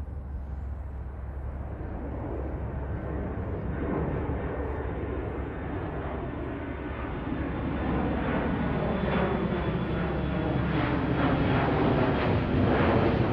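Airplane flying by overhead: a low engine rumble that grows steadily louder as it approaches.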